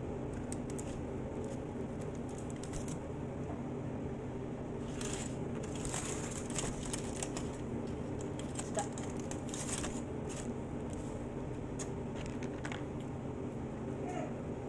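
Aluminium foil crinkling and rustling in short bursts as food wrapped in it is handled, busiest between about five and ten seconds in, over a steady fan hum.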